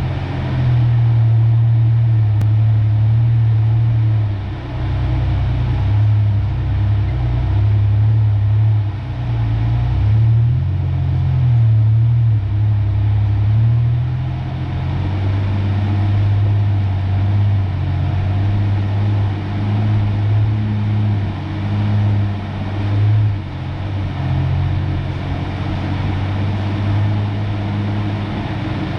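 1993 Ford Ranger's engine running steadily at low speed, its pitch rising and falling slightly as the truck drives a dirt trail.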